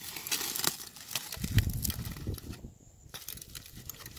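Aluminium foil crinkling, crackling and tearing as a knife blade cuts open a foil-wrapped fire-roasted crab, busiest in the first two and a half seconds, then sparser. A dull thump about a second and a half in.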